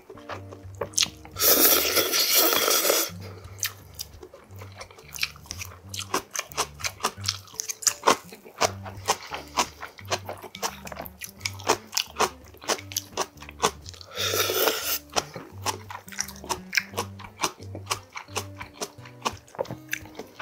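Ramen noodles slurped noisily twice, about a second in and again about two-thirds of the way through, with wet chewing and mouth clicks in between. Background music plays underneath.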